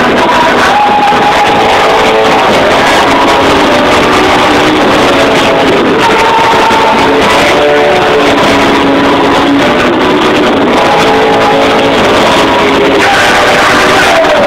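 Rock band playing live in an arena, recorded loud on a phone's microphone: electric guitar and held sustained notes over the full band, with no singing.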